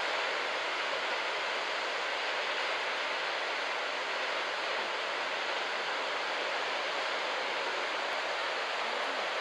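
Steady rushing hiss of surf breaking and washing up on a sandy beach break.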